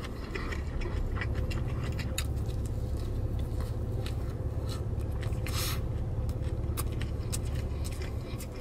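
Close-miked biting and chewing of a hamburger: wet mouth clicks and small crunches, with one louder crunch a little past halfway, over a steady low rumble of the car cabin.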